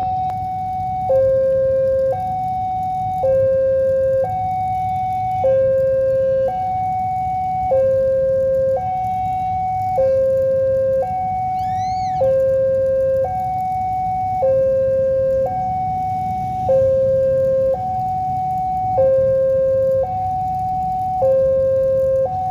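Railway level-crossing warning alarm sounding a steady two-tone high-low signal, each tone held about a second, warning that the barrier is down and a train is coming. A brief rising-and-falling chirp is heard about halfway through.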